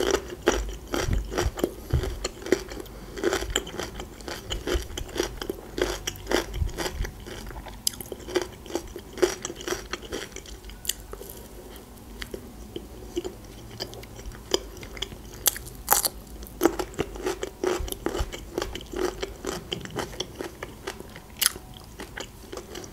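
Close-miked mouth sounds of eating: crunchy bites and wet chewing, first of a pickled gherkin, then of a bread slice spread with zucchini caviar, with many short crisp clicks and crunches throughout.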